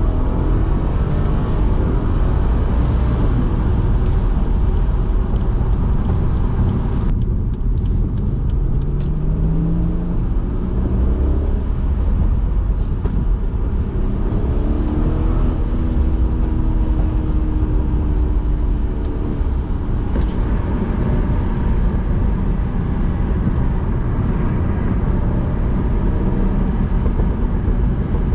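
Decatted BMW 340i's tuned B58 turbocharged straight-six running while the car is driven, over a steady low road rumble. The engine note rises about nine seconds in, then holds steady for a few seconds midway.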